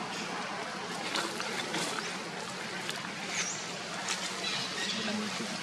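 Dry leaves crackling faintly now and then as a baby macaque picks through them, over a steady outdoor hiss.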